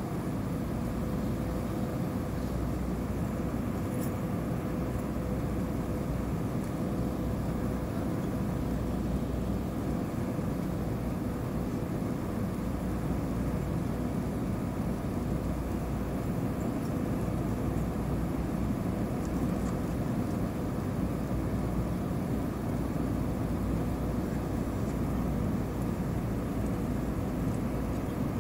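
Steady in-cabin noise of an Airbus A320-232 airliner on approach: a low rumble of its IAE V2500 turbofan engines and the airflow over the fuselage, with a faint steady hum running through it.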